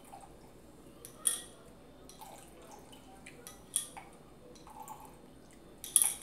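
Strawberry Ramune soda poured in slow spurts from its bottle into a glass mug over ice: gurgling and dripping, broken by a few sharp clinks of glass and ice, the loudest near the end.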